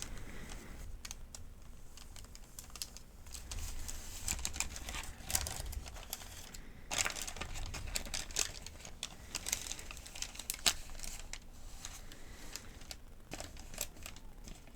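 Paper crinkling and rustling as a pharmacy medication guide is handled, in irregular crackles.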